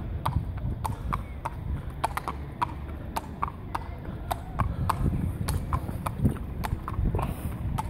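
Hooves of a horse walking on a tarmac road, striking in a steady, even clip-clop.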